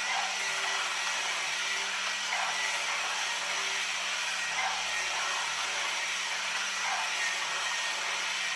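A Haynes HM04R model engine kit running on its small electric motor: a steady mechanical whir and churn from the turning plastic mechanism, with a soft swell that comes back about every two seconds.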